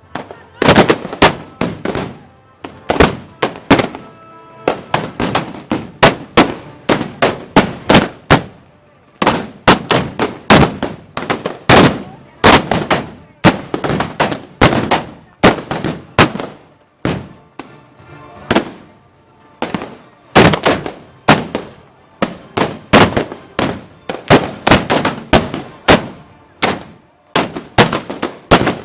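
Many black-powder arquebuses firing in rapid, irregular volleys, several shots a second overlapping one another, with short lulls between clusters.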